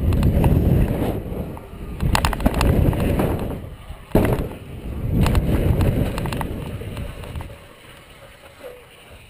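Wind rushing over a helmet-mounted GoPro on a BMX bike riding a dirt-jump line, with tyres on packed dirt and the bike rattling. A sharp thump about four seconds in as the bike hits a wooden box jump. The rush dies down near the end as the bike slows.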